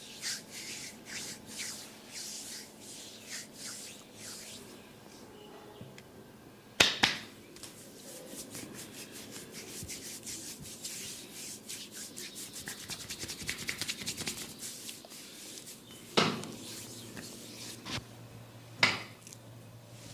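Barber's head massage: repeated rubbing and scratching strokes on hair and scalp, speeding up to a fast run of short strokes in the middle, with a few loud sharp smacks, two of them close together about seven seconds in.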